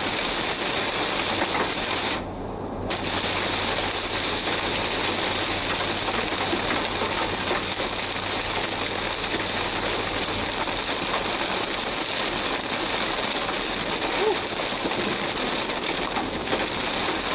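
Heavy rain mixed with hail pelting a vehicle's windshield and body, heard from inside the cab as a loud, steady hiss. It briefly drops away about two seconds in.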